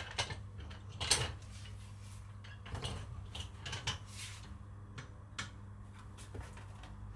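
Scattered light metallic clinks and knocks of a rear paddock stand being positioned under a sport motorcycle's rear wheel, over a low steady hum.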